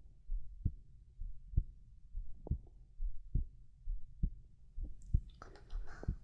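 A human heartbeat, slow and steady at about seventy beats a minute, as close-miked heartbeat ASMR. Soft whispering comes in over it about five seconds in.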